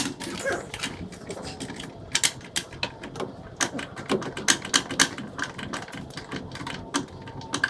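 Irregular sharp clicks and light knocks of hand tools and metal hardware being worked, with no steady rhythm.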